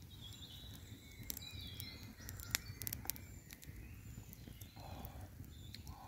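Woodland ambience: small birds calling faintly over a low steady rumble, with a few sharp clicks about two to three seconds in.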